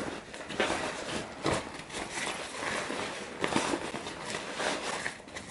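Thin nylon packable daypack rustling irregularly as a towel is stuffed into it by hand, with a few sharper handling noises.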